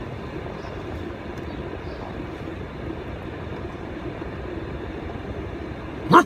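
Car engine idling, a steady low hum heard from inside the cabin, with a brief sharp rising squeak near the end.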